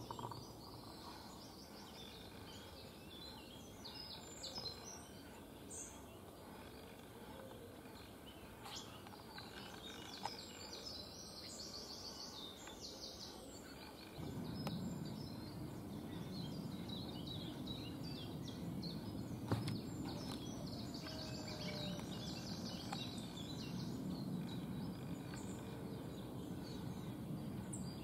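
Small songbirds chirping and twittering, with many short, high calls scattered throughout, over a steady background of distant noise. A low rumble in that background gets louder about halfway through.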